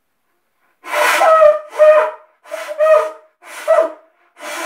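A large seashell blown as a horn: short hooting blasts on one steady note, roughly one a second, starting about a second in. Four blasts sound, and a fifth begins near the end.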